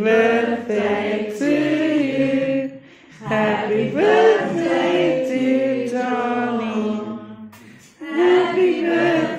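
A group of people singing a birthday song together around the candle-lit cake, in long sung phrases with short breaks about three and eight seconds in.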